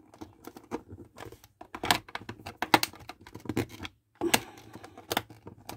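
A screwdriver tightening screws into the plastic housing of an old Philips hand mixer, with irregular clicks, scrapes and knocks from the screwdriver tip and the housing being handled. The sound breaks off briefly about four seconds in.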